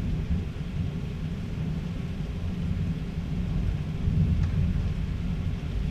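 Deep rumble of a severe thunderstorm, swelling suddenly and again about four seconds in, over a faint steady hiss.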